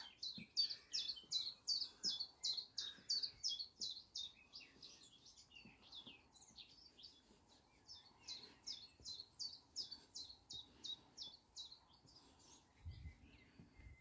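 A small songbird singing two runs of rapid, repeated high notes, about five a second. The first run lasts about four seconds and the second starts about eight seconds in. A brief low rumble comes near the end.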